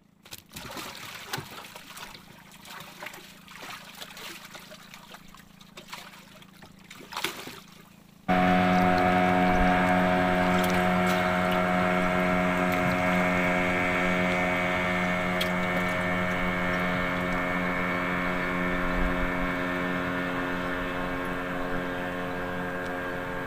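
Scattered knocks and water sloshing around a small wooden boat, then from about eight seconds in a small boat engine running steadily at one pitch, easing off slightly in level.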